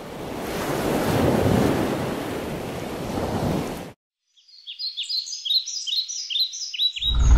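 Ocean surf washing, which cuts off suddenly about four seconds in. A bird then chirps in a quick run of short, falling notes, and a loud low drone cuts in at the very end.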